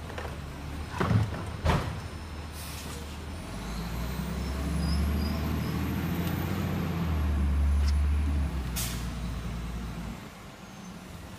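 Garbage truck at work: two sharp bangs about a second in, then its engine revs up and runs louder for several seconds, with short hisses of air, before easing off near the end.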